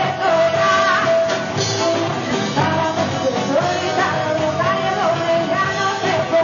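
Live rock band playing: a woman singing over electric guitar, bass guitar and drums, with one long held note over the first second or two.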